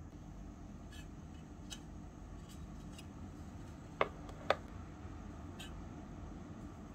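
Light clicks and taps of small items being handled on a wooden cutting board, the two sharpest about four seconds in and half a second apart, over a steady low hum.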